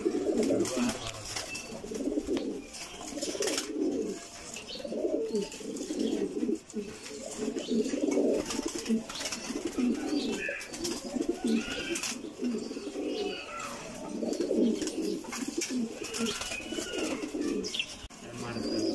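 Domestic pigeons of a breeding pair cooing over and over, one low rolling coo after another with hardly a pause.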